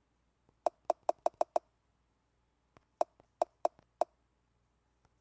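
Short clicks of typing on a tablet's on-screen Zhuyin keyboard: six quick key taps, then after a short pause four more.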